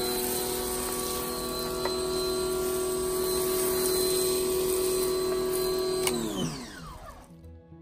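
Electric pressure washer running with a steady motor whine under the hiss of the spray jet; about six seconds in the motor winds down, its pitch falling away until it stops.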